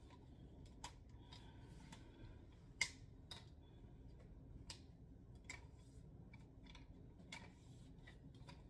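Faint, scattered clicks and light knocks from a new tripod being handled and turned over, the sharpest about three seconds in.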